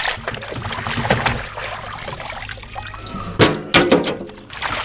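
Water sloshing and splashing as whole red snapper are rinsed by hand in a basin, with two louder knocks about three and a half seconds in.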